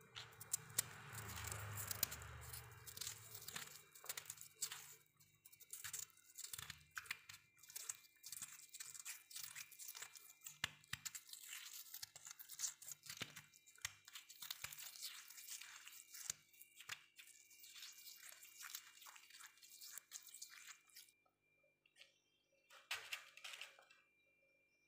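Freezer frost crunching: a long, dense run of crisp, crackly crunches. It stops shortly before the end, then comes back in one short burst.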